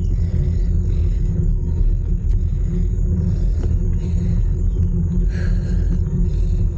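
Steady low wind rumble buffeting a bike-mounted camera's microphone while riding.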